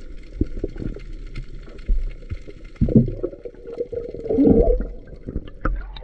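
Muffled underwater sound heard through a camera's waterproof housing: water gurgling and sloshing, with a few knocks from handling. Louder gurgling swells come about three and again about four and a half seconds in.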